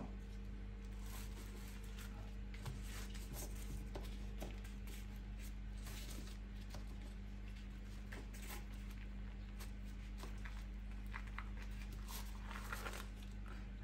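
Faint rustling and a few soft taps of puff pastry being rolled up by hand on its backing sheet, over a steady low hum.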